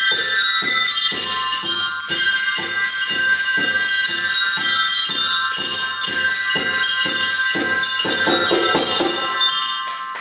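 Glockenspiels played together, metal bars struck in a steady beat of about two and a half notes a second with bright ringing tones; the playing dies away near the end.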